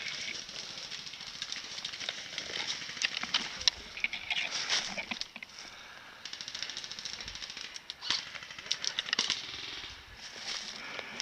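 Airsoft guns firing in a skirmish: scattered sharp single shots, then a rapid full-auto burst of even clicks about six seconds in, with more shots following around eight to nine seconds.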